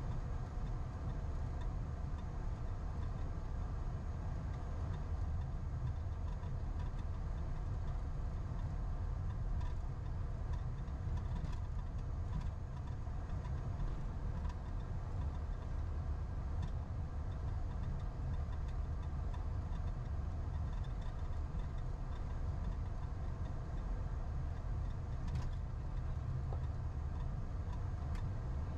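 Airliner cockpit noise while taxiing: a steady low rumble of the engines and rolling aircraft, with a few faint clicks scattered through.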